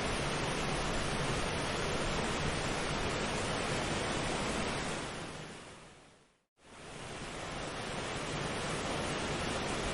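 Steady, even rushing noise of a nature-ambience track, like distant surf or falling water. It fades out to silence about six and a half seconds in, then fades back up over the next second or so.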